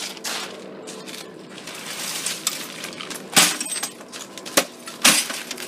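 Broken glass from a smashed CRT television screen clinking and crunching as the set is handled, with three sharp knocks about three and a half, four and a half and five seconds in.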